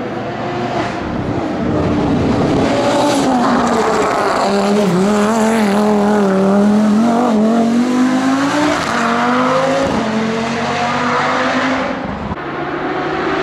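Race car engine at high revs, its pitch wavering up and down as it is driven hard through a hairpin, with tyres squealing.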